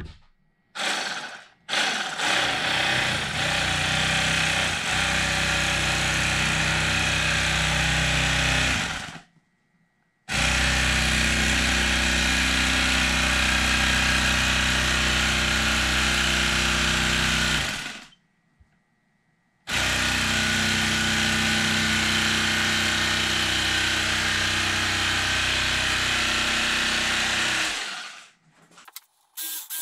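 Electric carving knife running as its blades saw through 3-inch foam, in three long runs of about seven to eight seconds with two short stops between them.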